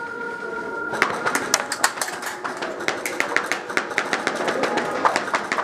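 Airsoft guns firing: a rapid, irregular run of sharp snaps and clicks starts about a second in and keeps going.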